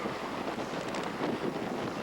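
Wind buffeting the microphone aboard a sailboat, a steady rushing noise with no engine note or voices.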